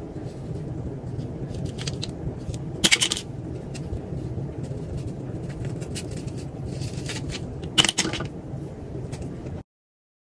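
Close handling noise as rod-set curls are unravelled by hand: a steady low rumble with two sharp clicks, about three seconds in and again near eight seconds, then the sound cuts off to dead silence.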